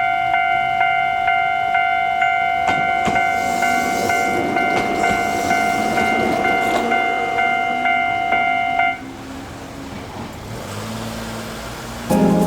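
Level crossing warning bell ringing in steady strokes at about two a second while a Gakunan Railway train runs over the crossing with a rumble of wheels on rails. The bell stops suddenly about nine seconds in, as the crossing clears.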